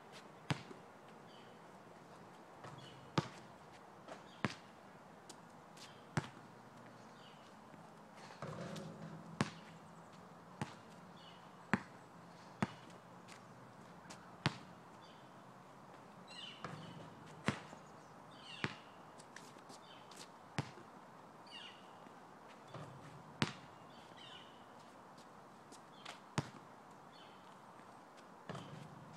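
A basketball bouncing on an asphalt court: single sharp bounces, spaced unevenly one to three seconds apart, as a player dribbles and shoots free throws.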